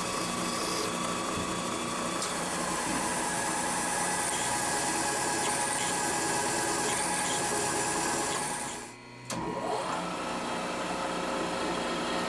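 Milling machine spindle running steadily as it drills into a flat metal block. About nine seconds in the sound cuts out briefly, then comes back with a rising whine as the spindle spins up again.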